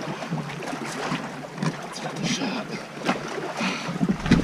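A jack crevalle held out of the water, "talking": short croaking grunts among irregular clicks and knocks. Wind rumbles on the microphone near the end.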